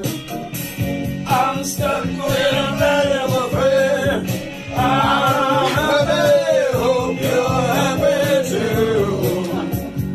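Music with a singing voice holding long, bending notes over a steady low accompaniment.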